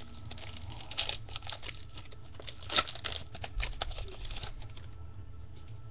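Topps Fire trading cards being flipped and slid against one another in the hand: an irregular run of light clicks and rustles, the sharpest a little under three seconds in, thinning out toward the end.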